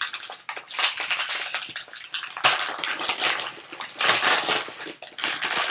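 Foil wrapper of a trading-card pack crinkling and tearing as it is peeled open by hand: a dense run of crackles, louder about two and a half seconds in and again around four seconds in.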